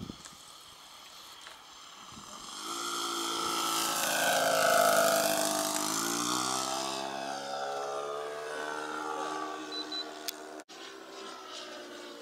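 OS 91 Surpass four-stroke glow engine of a radio-controlled P-51 flying past: the engine note swells to its loudest about five seconds in, then drops in pitch and fades as the plane goes by.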